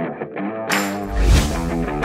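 Background rock music led by electric guitar, with a crash and a deep low hit a little past halfway.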